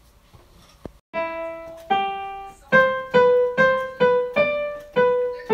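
Gear4music SDP-2 digital stage piano played one note at a time in a slow, simple melody, with several repeats of the same note. The notes start about a second in, after a moment of quiet.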